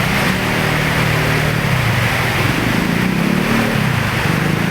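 Motor vehicle engines running through a flooded road, over a steady rush of heavy rain and churning water.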